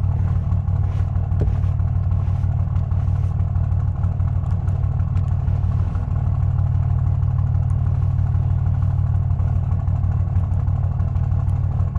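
Diesel engine of a compact construction machine idling steadily, a constant low hum with no change in speed.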